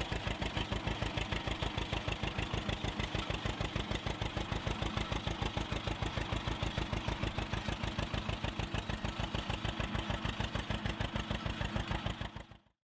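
1935 John Deere Model A's two-cylinder engine running as the tractor drives along, its exhaust popping in an even, rapid beat. The sound fades out quickly just before the end.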